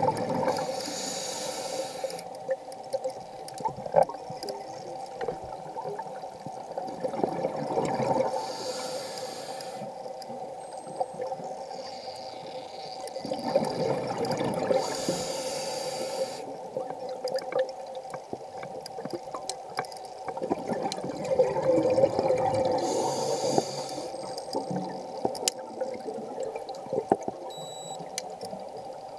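A diver breathing through a scuba regulator underwater: about four breaths, each a high hiss followed by a rush of exhaled bubbles, over a faint steady hum.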